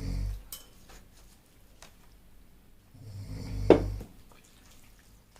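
A sleeping man snoring: one low, rattling snore fades out just after the start, and a second, about a second long, comes about three seconds in. A short sharp click rings out at the height of the second snore.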